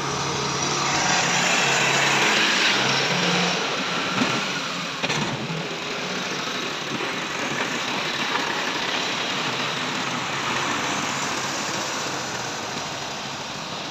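Massey Ferguson tractor engine running steadily while working, under a broad steady hiss.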